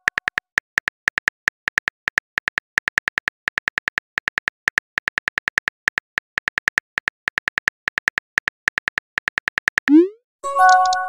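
Rapid synthetic keyboard-tap clicks from a texting-story app as a message is typed out, several taps a second. About ten seconds in, a rising swoop sounds as the message is sent, followed by a short chime of several tones.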